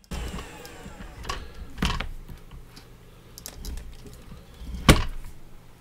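Light clicks and knocks as a laptop motherboard is handled and turned on a workbench, with one sharper knock about five seconds in.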